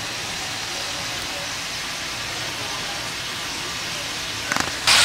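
French fries deep-frying in a pot of hot oil: a steady sizzle like rain, jumping louder just before the end.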